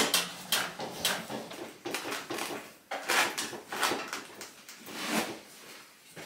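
Irregular knocks, clanks and rattles of metal parts being handled on a tube-frame go-kart-style chassis, about one every half second to a second, with no engine running.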